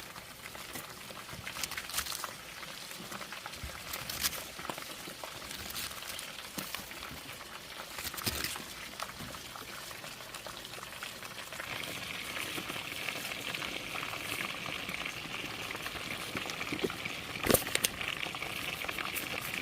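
Food cooking in a pan: bubbling, with a few sharp clicks of a utensil against the pan. About twelve seconds in, a steady sizzle sets in and grows louder.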